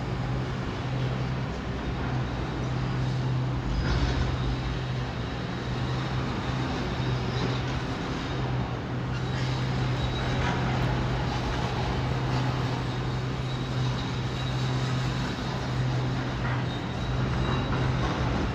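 Heavy diesel engine of demolition machinery running steadily at a constant low pitch, with a few scattered knocks and crunches.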